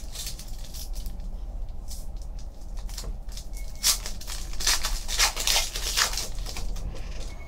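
Foil wrapper of a Panini Contenders football card pack crinkling and tearing as it is ripped open by hand, loudest about four to six seconds in.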